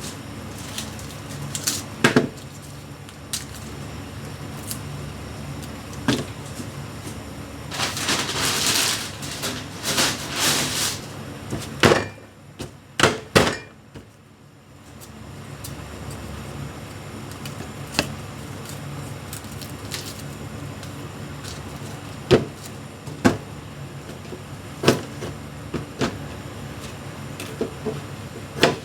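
Kitchen cooking sounds: utensils and cookware knocking and clicking over a steady hum, with a few seconds of rushing, hissing noise about a third of the way in and a burst of clatter just after.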